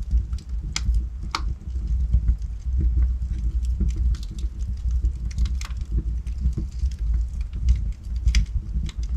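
Logs burning in a fireplace: a steady low rumble of the fire under frequent sharp crackles and pops from the burning wood, a few of them louder, about a second in and near the end.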